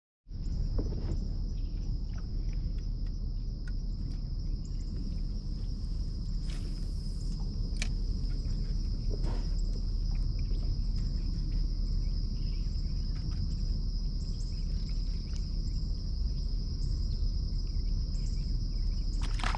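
Insects trilling in one steady, unbroken high tone, the constant drone of a late-season insect chorus, over a steady low rumble with a few faint clicks.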